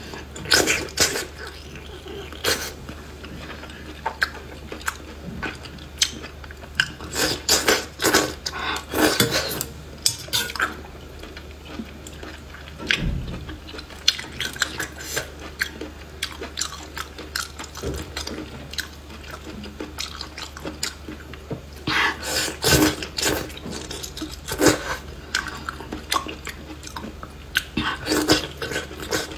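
Close-miked eating: chewy braised intestines in chili oil sucked in with wet slurps and chewed with moist, clicking mouth sounds. Chopsticks clink against the metal pot. The sounds come in bunches of rapid smacks and slurps, with quieter chewing between.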